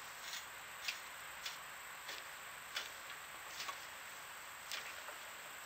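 Light, sharp clicks, roughly one or two a second and a little irregular, from a pipe cheater bar on a pipe wrench being bounced on to break a rusted disc-harrow axle nut loose; the nut has not yet given.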